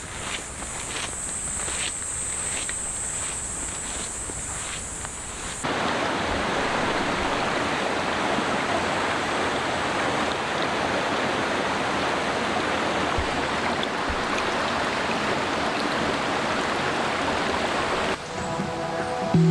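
Rain falling in a forest: at first a light hiss with scattered drops ticking. After about five and a half seconds it becomes a denser, louder, even patter.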